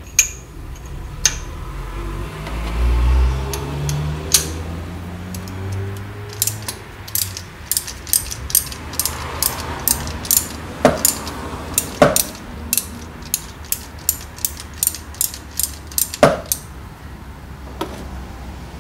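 Ratchet wrench on a spark plug socket clicking steadily, about two clicks a second, with a few louder metal knocks among them, as old spark plugs are loosened from the engine's cylinder head. A low rising hum comes before the clicking, in the first few seconds.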